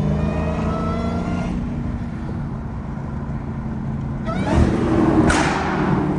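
Dodge Hellcat's supercharged 6.2-litre HEMI V8 cruising and easing off, then accelerating hard about four seconds in with a rising rev. About a second later comes a sharp, loud burst of exhaust noise.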